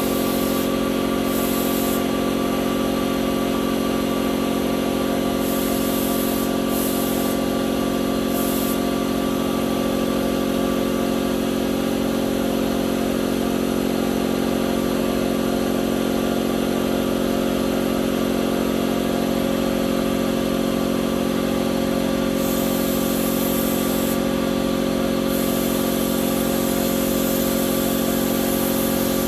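A motor running steadily at an even pitch, a constant hum.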